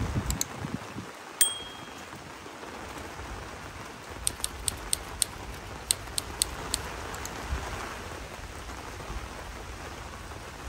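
Chicken frying in a pan of hot oil: a steady sizzle, with a quick run of sharp pops and spits about halfway through. Near the start there is a single short metallic clink that rings briefly.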